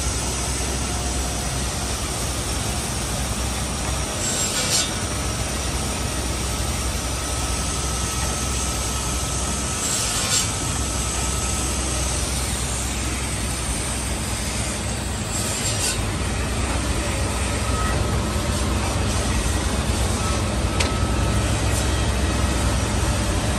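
Woodmaster automatic corner-block cutting and drilling machine running: a steady motor hum, with a brief high rasp about every five seconds as it works through its cutting and drilling cycle.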